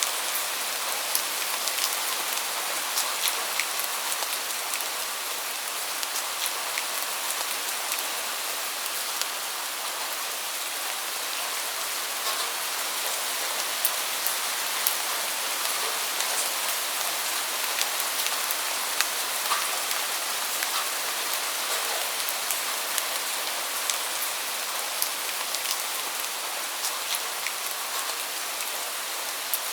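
Steady rain falling: an even hiss of rain with many sharp drop ticks scattered through it.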